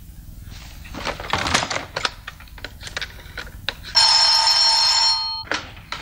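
Telephone bell ringing once, a steady ring about one and a half seconds long that starts about four seconds in. Before it comes a run of light clicks and knocks.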